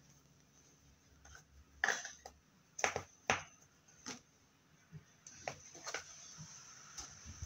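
Homemade slime being squeezed and pressed into a plastic tub, with a series of separate sharp clicks and taps from the slime and the plastic tub and lid.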